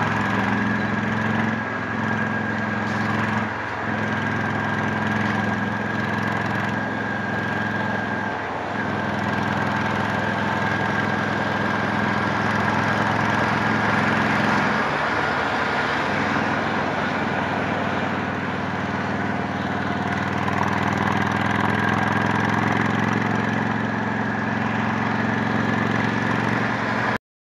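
Honda Shadow 750's V-twin engine running through a Torbal 3-inch sport exhaust while riding, steady, with a few brief dips in the engine note in the first half. The sound cuts off suddenly near the end.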